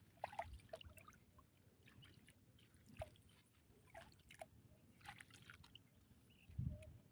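Faint scattered drips and small splashes of water, with a soft low thump near the end.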